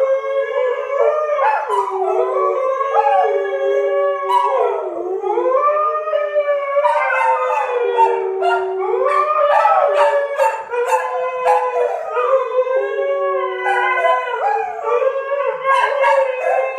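A Siberian husky and two English springer spaniels howling together: several long, wavering howls at different pitches overlap one another without a break.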